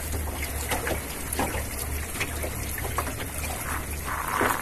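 Small river waves lapping and trickling against the hull of an anchored boat, small ticks and splashes over a steady low rumble, with a short louder hiss near the end.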